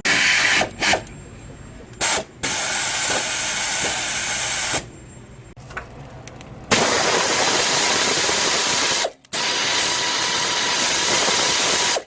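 A power tool runs in bursts that start and stop abruptly: a few short blips, then three runs of two to three seconds each.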